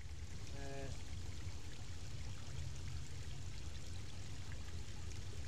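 River water flowing steadily over and around rocks, an even wash of water noise.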